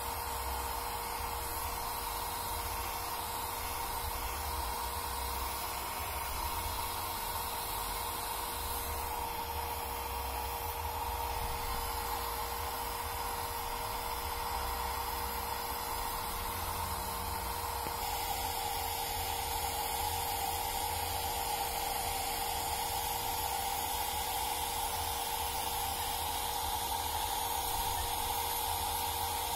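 Small handheld hair dryer running steadily, blowing air at wet cat fur: a rushing hiss over a steady motor whine. About two-thirds of the way through its tone shifts and it gets slightly louder.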